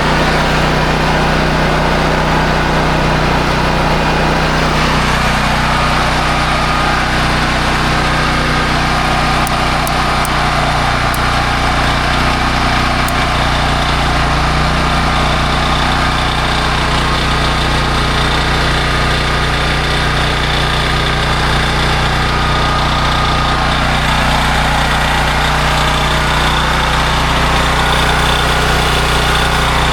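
Honda EB5000X generator's single-cylinder engine running at a steady speed, with the replaced governor arm holding the engine speed even.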